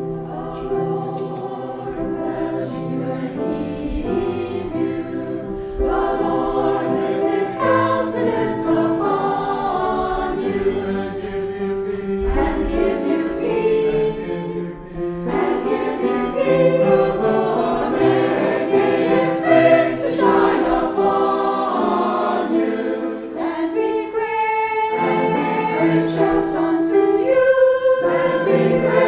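A choir singing, coming in abruptly out of silence at the start.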